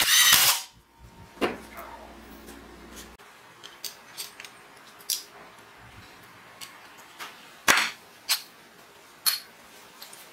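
Electric drill whirring in a short burst lasting just over half a second as it spins the threaded mandrel of a homemade rivet nut tool in a rivet nut. Then scattered sharp metal clicks and taps as the tool's parts are handled and turned with a hex key.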